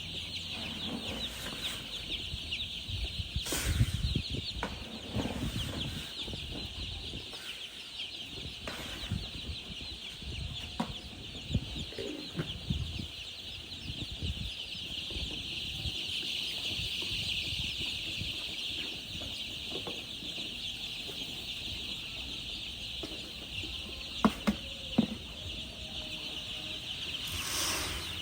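A crowd of baby chicks peeping without pause, a dense high-pitched chirping, with scattered low knocks and rustles and a few sharp taps near the end.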